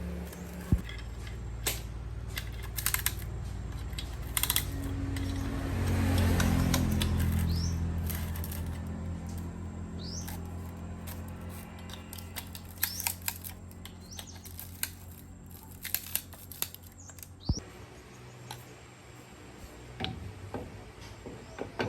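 Scattered sharp metal clicks and clinks of hand tools and engine parts being handled, over a low motor hum that swells about six seconds in and then slowly fades. A few short high chirps come through now and then.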